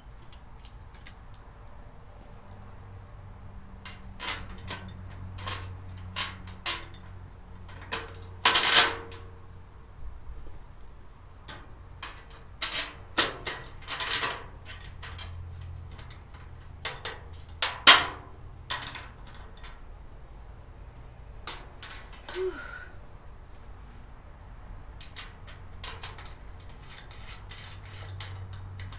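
Irregular clicks, clinks and knocks of storage-cart parts and small hardware being handled and fitted together during assembly. The louder knocks come about 9 seconds in and about 18 seconds in.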